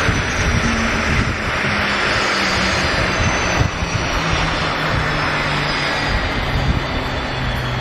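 Il-76TD-90VD's PS-90A turbofan engines running on the ground: a loud, steady rushing noise with a faint high whine slowly falling in pitch.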